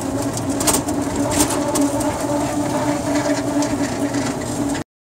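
Small boat engine running steadily, a constant low drone with light rattling clicks, cutting off suddenly near the end.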